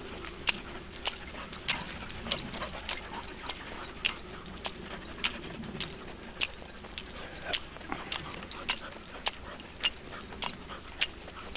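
Footsteps of a person walking along a dirt track, each step a sharp click, in an even rhythm of a little under two a second.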